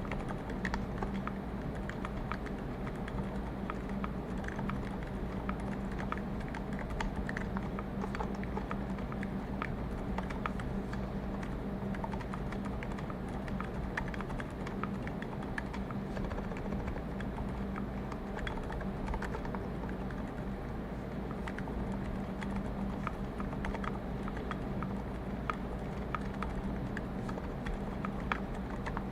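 Continuous typing on a custom Klippe mechanical keyboard with MX Zilents silent tactile switches, lubed with Krytox 1514 and fitted with switch films, a brass plate and GMK keycaps: a fast, steady run of quiet, muted keystrokes. Underneath is a steady low ambient hum brought up by the raised microphone sensitivity.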